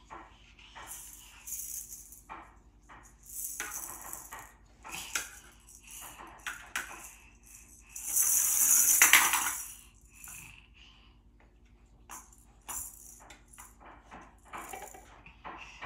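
Clicks and clatters from a toddler handling a wooden push-down ball toy. About eight seconds in, a louder rattle lasts about two seconds as the balls spin around in its clear drum.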